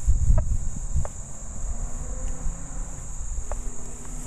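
Nokta Fors Core metal detector giving only a few short, broken blips, about three, as the coil passes over a rusty iron nail with the dime removed. It is spitting and sputtering with no solid repeating tone: iron alone, no coin. Crickets chirr steadily throughout, and a low rumble comes at the start.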